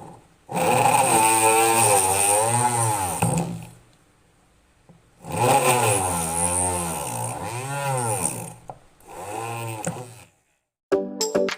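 Homemade 12 V drill's 555 DC motor running in three bursts, its pitch dipping and recovering over and over as the bit is loaded. Music starts near the end.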